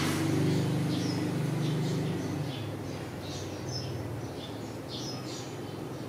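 Small birds chirping in short, high, scattered notes. Under them a low engine hum fades away in the first two or three seconds.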